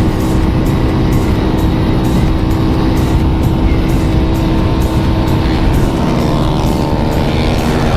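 Vehicle engine running steadily at high cruising speed, with heavy wind and road rumble.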